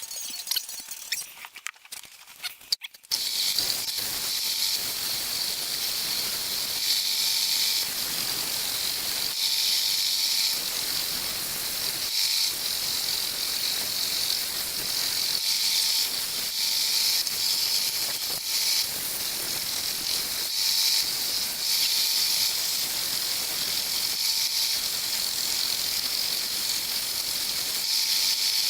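Scroll saw starting about three seconds in and running steadily, its blade cutting wood with a high hiss that swells and eases as the cut goes, with a couple of brief dips.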